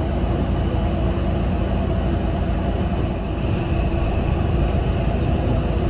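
Mitsubishi Fuso Aerostar city bus idling steadily while stopped, heard from inside the cabin: an even, low diesel engine rumble.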